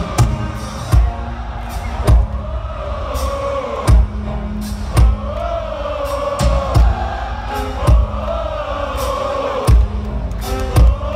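Large stadium crowd singing a melody together over live rock-band music, with a kick drum thumping about once a second.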